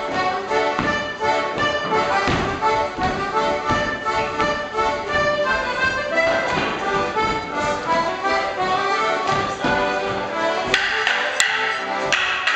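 A live folk dance tune for a Morris dance, with dancers' shoes stepping on a wooden floor. Near the end come several sharp clacks of wooden sticks struck together.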